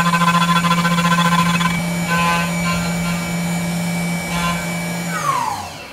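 Tormach 1100MX CNC mill's spindle running with an end mill cutting aluminium under flood coolant: a steady hum with a pulsing whine above it. About five seconds in, the spindle winds down with a falling pitch and the cutting noise stops.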